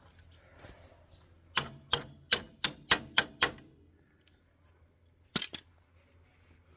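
Seven hammer blows in quick succession, about three a second, each with a short ring. A quick double knock follows about five seconds in.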